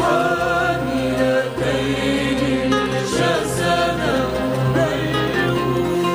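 Christian hymn music: sung voices over a sustained instrumental accompaniment with a steady low bass.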